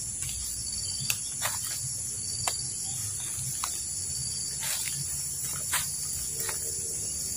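Tropical forest insects making a continuous high-pitched chirring drone, with a few faint scattered clicks.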